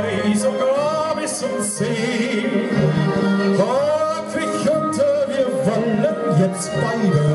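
German Schlager song: a male singer with a microphone over a backing track played through PA speakers, holding long, wavering notes.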